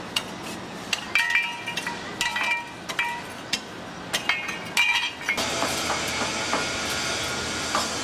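Metal clanking: a string of sharp metal-on-metal strikes, each with a short ringing tone. About halfway through, a steady hiss joins in under the strikes.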